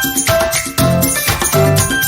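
Background music with a steady beat, a bass line and bright jingling percussion.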